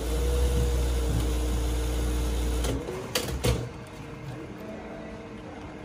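Industrial lockstitch sewing machine running steadily for nearly three seconds as it stitches a waistcoat pocket piece, then stopping; two sharp clicks follow shortly after it stops.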